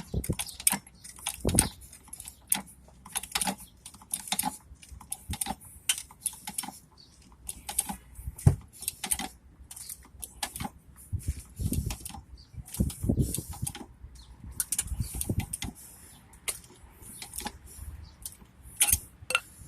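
Hydraulic car jack being pumped by its handle to raise the car: a long run of irregular clicks, rattles and a few heavier knocks.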